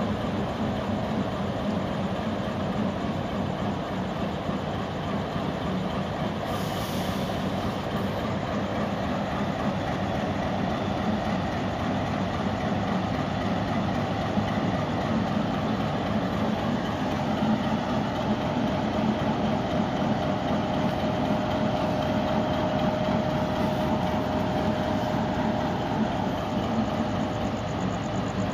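Diesel-electric locomotive's engine running steadily as the locomotive moves slowly along the platform, with a faint steady whine in the second half.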